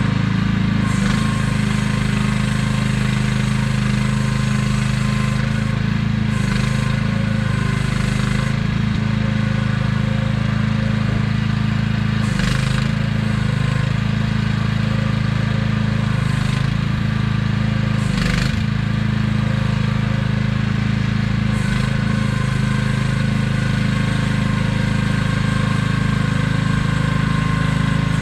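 AGT QH12R mini excavator's small engine running steadily under operation, with a few brief, sharper noises over it.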